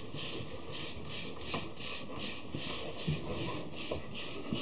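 Stiff bristles of a wooden-backed hard hair brush scraping quickly through short, thick, coarse hair, about three even strokes a second: brushing to train 360 waves.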